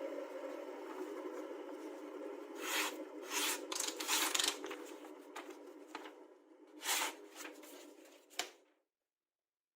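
A knife blade scraped across a sharpening stone in a handful of short, uneven rasping strokes over a steady background hum that fades away, ending in silence near the end.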